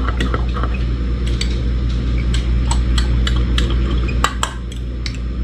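A metal utensil stirring a thick mayonnaise sauce in a small glass bowl, giving scattered light clinks against the glass, with two louder clinks about four seconds in, over a steady low hum.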